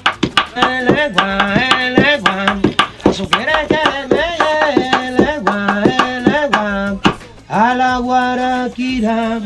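Wooden pestle pounding in a wooden mortar, a quick, steady run of knocks several times a second, with a man's voice singing over it.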